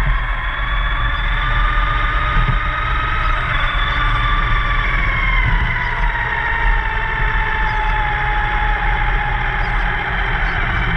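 Small-scale model car's drive whine, its pitch rising a little and then falling slowly through the middle, over a steady low rumble.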